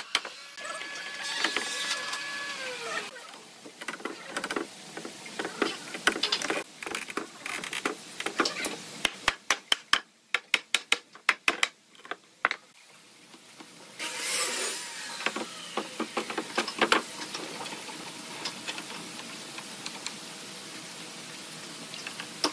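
Woodworking shop sounds: a run of sharp taps and knocks, with a small motor running briefly near the start and winding down in pitch.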